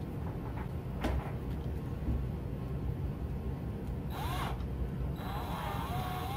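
Small cordless drill spinning a small bit through solder on a wire terminal. A few clicks of handling come first. About four seconds in there is a short rising whine, then from about five seconds the drill runs again with a wavering whine as the bit bites.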